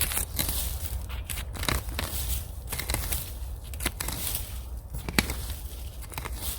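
Rustling and crunching of dry leaf litter in uneven bursts, with a few sharp clicks.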